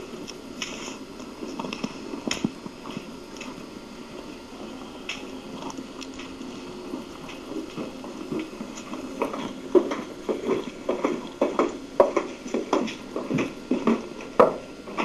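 Irregular short knocks and clicks over a steady room hiss, growing busier and sharper after about nine seconds.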